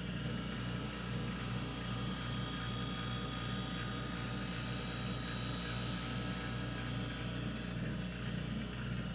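Figure skate blade in a clamp holder drawn along a skate sharpening machine's grinding wheel for a sharpening pass: a steady high grinding hiss of steel on the stone over the running motor's hum. The hiss starts right away and stops about a second before the end, while the motor keeps running.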